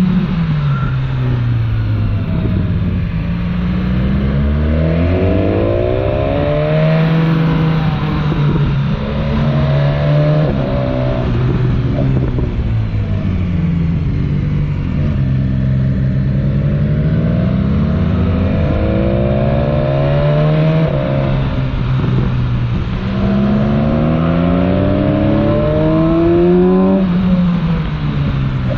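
BMW S1000XR's inline-four engine through its original exhaust, revving up again and again with quick gear changes, then falling back on the overrun with pops and bangs.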